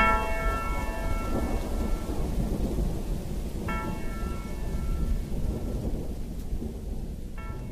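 Rain and rolling thunder, with a ringing chord struck three times, about three and a half seconds apart, each dying away; the whole bed slowly fades.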